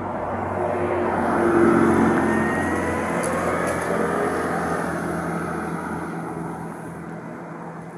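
Engine noise of a passing vehicle, swelling to its loudest about two seconds in and then slowly fading away.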